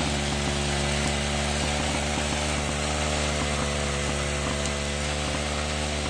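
Small gasoline engine of a mini reaper running at a steady speed, with a light mechanical clatter over the engine note.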